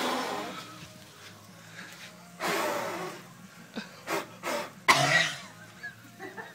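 A man blowing hard at the flames on a burning barbecue grill: three forceful, breathy puffs, with a few short clicks between them.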